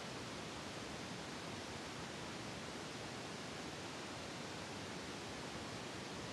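Steady, even hiss with nothing else standing out: constant background noise.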